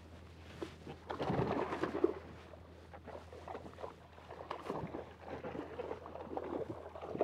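Water splashing and sloshing against a fishing kayak's hull as a hooked yellowfin tuna thrashes at the surface beside it during the end of the fight. The splashing is loudest about a second in and again in the second half.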